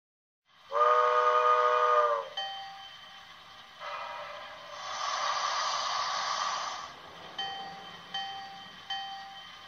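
Steam locomotive sound effects, from an HO scale model: a chime steam whistle blows one blast of about a second and a half, dipping slightly in pitch as it stops. A bell strikes once, then steam hisses for about three seconds, and the bell rings three more times, about three-quarters of a second apart, near the end.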